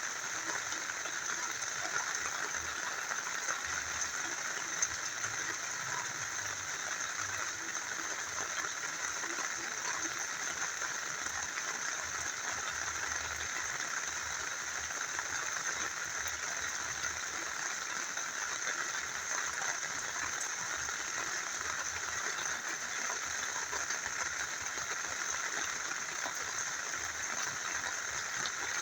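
Steady rain falling together with a small river flowing: an even, unbroken hiss of water with faint scattered drop ticks.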